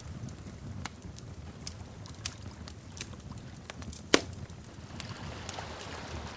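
Wood fire crackling: scattered sharp pops and snaps over a low, steady rumble, with one loud pop about four seconds in.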